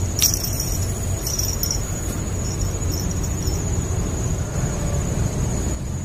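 Steady high-pitched insect drone over a continuous low rumble, with one sharp click just after the start.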